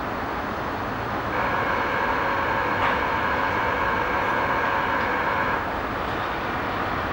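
Electric locomotive standing at a station platform, with a steady rumble and hum. From about a second in until about five and a half seconds, a steady high whine of several tones sounds over it, then stops abruptly.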